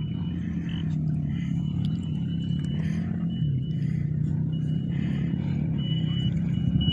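Rally motorcycle engines running, a steady low engine note whose pitch wavers up and down. A thin high whine comes and goes above it.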